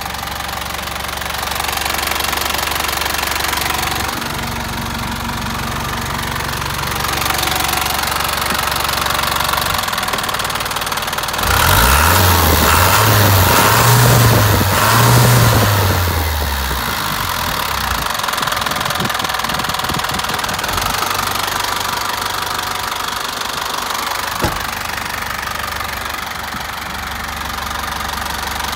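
Hino Dutro truck's diesel engine idling steadily. About twelve seconds in it is revved up and down a few times over some four seconds, then settles back to idle.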